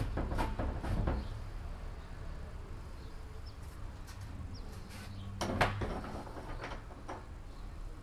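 Knocks and clatters from handling objects at a plastic drum, the loudest about five and a half seconds in.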